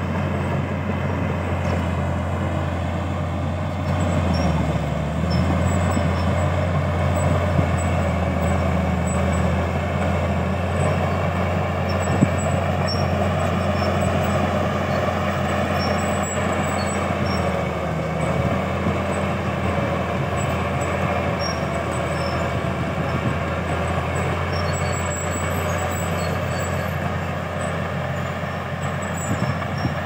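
Shantui DH13 crawler bulldozer's diesel engine running steadily under load as it pushes soil with its blade; the engine note dips briefly a couple of times.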